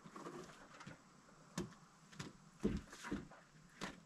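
A few separate sharp knocks and clicks of a board and a cordless drill being handled against wooden stud framing, the loudest about two and a half seconds in.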